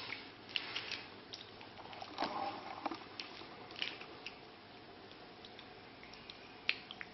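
Stickerless plastic speed cube being turned rapidly by hand: faint, irregular clicks and clacks as its layers snap round, with soft handling rustle.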